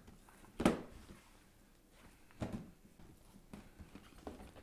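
Pop! figure boxes in clear plastic protector cases being handled and set down on a table: a few light knocks and taps, the first, under a second in, the loudest.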